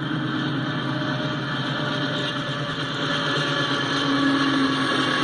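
CSX diesel freight locomotives passing close by at the head of an intermodal train: a steady engine drone and rumble that grows louder about three to four seconds in as the lead unit goes by.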